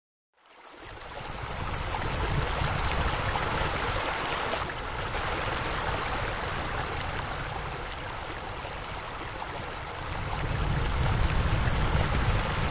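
Running, splashing water with a low rumble, fading in over the first second or two and swelling a little near the end.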